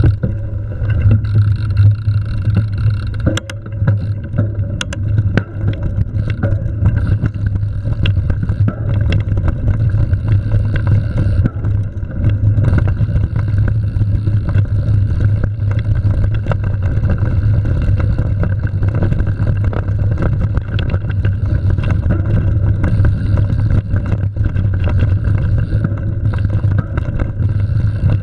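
Mountain bike riding over gravel and dirt trail: a steady low rumble of tyres on loose ground mixed with wind buffeting the camera microphone, with occasional sharp clicks and rattles from the bike.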